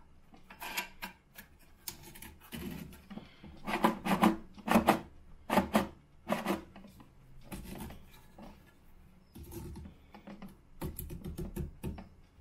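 Plastic back nut of a toilet cistern's flush lever being screwed tight by hand: irregular scraping, rubbing and clicking of plastic on the ceramic cistern wall, with the loudest knocks about four to five seconds in.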